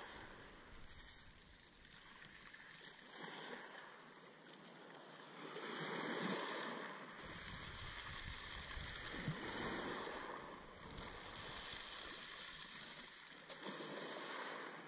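Small sea waves washing against wooden groyne posts, swelling and easing a few times, with wind buffeting the microphone from about halfway through.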